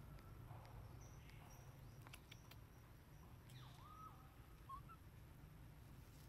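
Near silence: faint outdoor ambience with a few faint whistled calls, the clearest a little past the middle.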